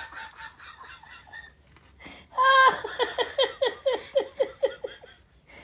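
An older woman laughing helplessly. Soft laughter at first, then about two seconds in a loud high drawn-out note breaks into a run of short falling 'ha' bursts, about four a second, that trail off near the end.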